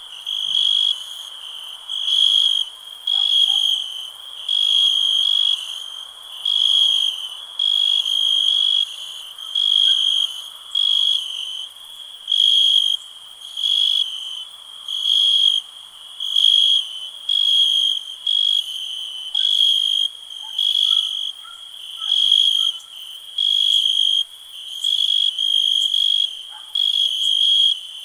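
A cricket chirping in an even rhythm, one short high-pitched trill about every second and a quarter, over a faint steady hiss.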